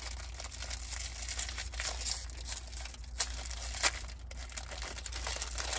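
Cellophane wrapper of a fortune cookie crinkling as it is handled and opened, with two sharp clicks a little after three seconds and just before four seconds in.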